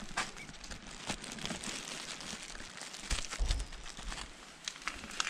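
Plastic zip-lock bag crinkling as it is handled, with scattered small clicks and a low thump about three and a half seconds in.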